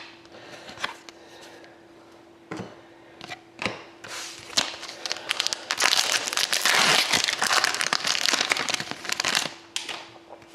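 Crinkling of a trading-card pack wrapper being handled, with a few light clicks first and then a dense run of crackling for about five seconds.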